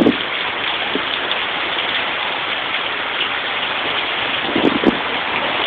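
Heavy rain falling steadily, a continuous hiss of downpour, with a couple of brief bumps near the end.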